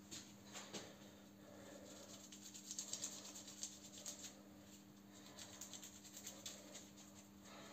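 Faint rustling and small clicks of hands working the wraps on a steel bending bolt, in two short runs, over a steady low hum.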